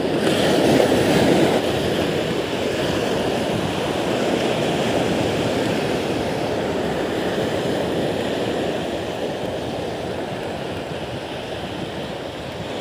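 Sea surf breaking and washing up the beach close by, a steady rush of water that is loudest in the first couple of seconds and eases slightly near the end.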